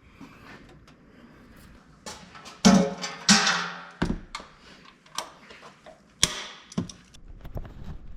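Irregular metallic clanks and knocks of tools and equipment being handled during car servicing. The two loudest come about three seconds in and ring on briefly, with further clanks near four and six seconds.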